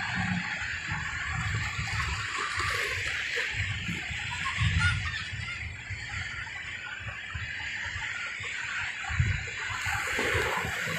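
Sea surf: small waves breaking and washing around a concrete breakwater in a steady rush, with low, irregular gusts of wind buffeting the microphone.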